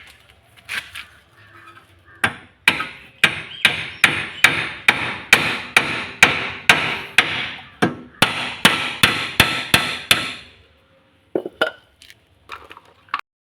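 Hammer striking the steel suspension lower arm, knocking it into place to line up its bolt hole: a steady run of about twenty sharp metallic blows, two or three a second, then a few lighter knocks near the end.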